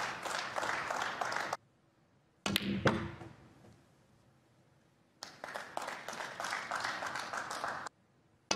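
Audience applause that stops abruptly, then a cue tip striking the cue ball and a sharp ball-on-ball click about two and a half seconds in. A second stretch of applause also cuts off abruptly, and another cue strike lands right at the end.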